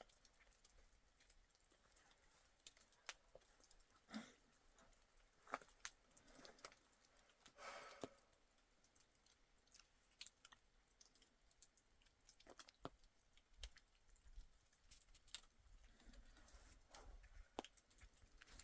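Near silence, broken by faint, irregular clicks and crunches scattered through the stretch.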